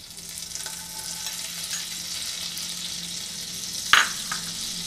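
Butter sizzling and crackling as it melts in a hot non-stick frying pan. A single sharp click about four seconds in stands out above the sizzle.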